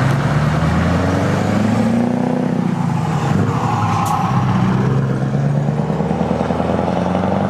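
A motor vehicle engine running steadily, its pitch drifting slowly up and down.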